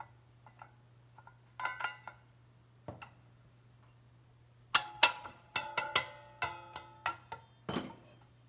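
Fan guard being pushed and knocked into place on the back end of an electric motor: a few light clicks, then a quick run of sharp knocks and clacks with a short metallic ring, starting about halfway through.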